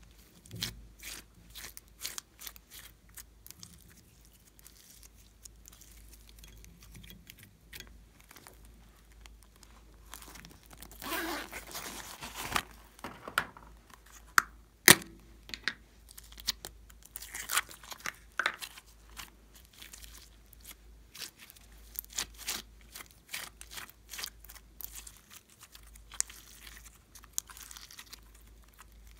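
Slime being squeezed, folded and stretched by hand, giving off quick sticky clicks and crackles. A denser crackling run comes around eleven to twelve seconds in, and one sharp loud click near fifteen seconds.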